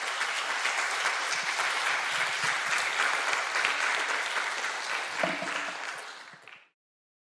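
Audience applauding: dense, steady hand-clapping that cuts off suddenly near the end.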